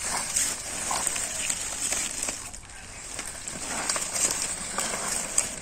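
Water hyacinth leaves rustling and water sloshing lightly as a man works his hands through the floating plants, with irregular small crackles.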